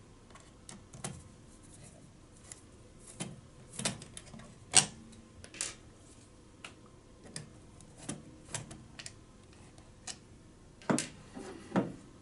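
Irregular light clicks and taps of a Phillips screwdriver turning small screws out of a weather station's plastic battery-holder cover, with the plastic parts being handled. A sharper click comes about five seconds in, and two more come near the end.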